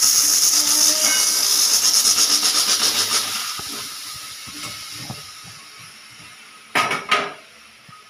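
Pressure cooker whistle venting steam: a loud hiss that flutters rapidly as the weight jiggles, dying away after about three seconds. Near the end come two short, loud bursts.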